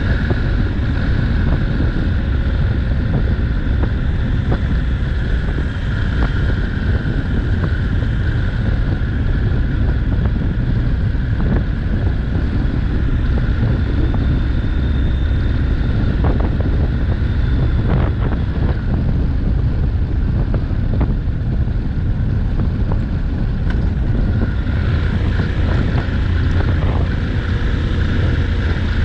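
Honda NC750X motorcycle riding at a steady pace: its parallel-twin engine runs as a low, even drone under a steady rush of wind on the microphone.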